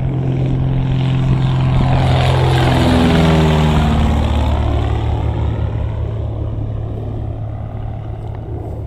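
An aircraft flying past, growing louder to a peak about three seconds in, its pitch dropping as it goes by, then fading away over a steady low hum.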